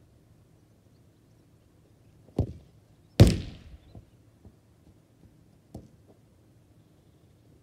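A football kicked with a sharp thud, then less than a second later a louder impact with a short ringing rattle as the ball strikes home, followed by a few faint knocks.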